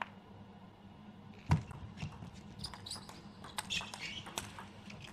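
Table tennis serve and rally: a sharp click of ball on racket about a second and a half in, the loudest sound, then a quick run of lighter clicks as the ball is struck and bounces on the table. Short shoe squeaks come in between.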